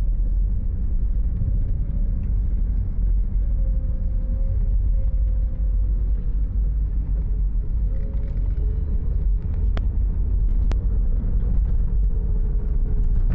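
Car driving along a winding road, heard from inside the cabin: a steady low rumble of engine and tyres, with a faint engine tone that drifts up and down a little. Two small clicks come about ten seconds in.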